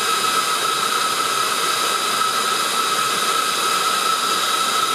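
Dreame T30 cordless handheld vacuum cleaner running steadily at its Medium suction level: a loud rush of air with a high, steady motor whine from its high-speed motor.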